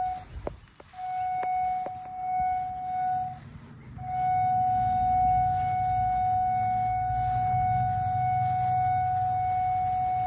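Vermeer Verifier G3 cable locator receiver giving a steady high-pitched tone as it picks up the signal on a buried cable being traced. The tone cuts out twice in the first four seconds, then holds steady. A few light clicks come in the first two seconds, with a low rumble under the tone.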